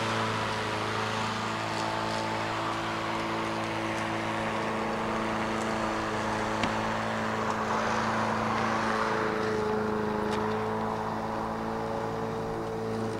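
A steady motor hum with a few faint ticks scattered through it.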